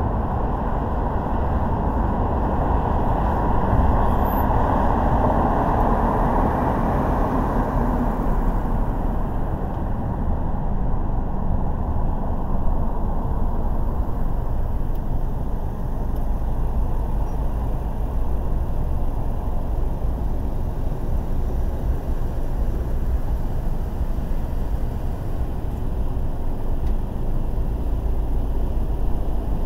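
A car driving along city streets: steady tyre and road noise with engine hum, a little louder in the first several seconds.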